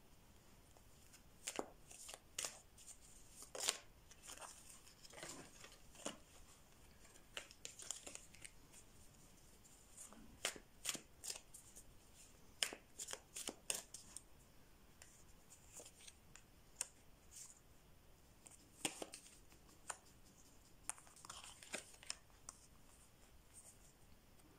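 Tarot cards being shuffled by hand: quiet, irregular flicks and snaps of the cards, in clusters with short pauses between them.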